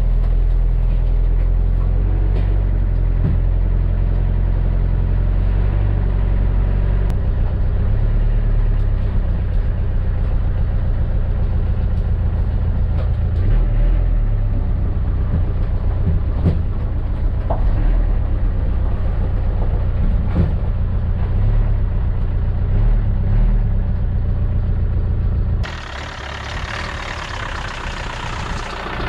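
Land Rover Discovery 1 engine running as the truck is driven, heard from inside its stripped-out cabin as a steady low drone that rises and falls a little with the throttle. Near the end it cuts to the same engine heard from below as the truck creeps onto an inspection pit.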